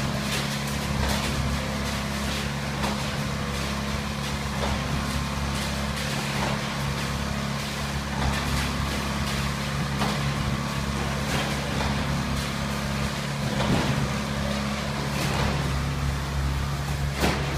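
An engine running steadily, a low even drone, with scattered knocks and clacks over it, loudest near the end.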